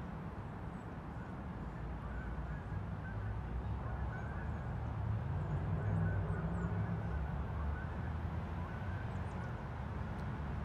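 Canada goose honking faintly several times over a steady low rumble of city traffic.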